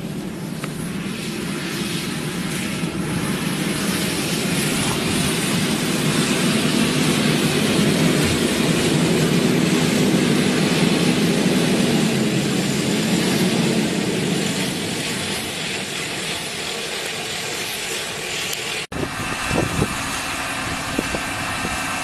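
Diesel engine of a Claas Xerion slurry tractor running under load, a steady drone that grows louder toward the middle and then eases off. A sudden cut about three-quarters of the way through changes the sound.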